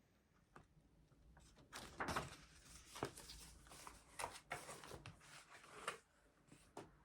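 A run of irregular knocks, clicks and rustles, as of objects being handled up close, lasting about six seconds before stopping.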